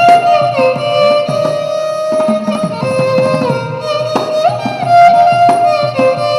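Violin playing a film-song melody with sliding, Carnatic-style ornaments between held notes, accompanied by hand-drum strokes.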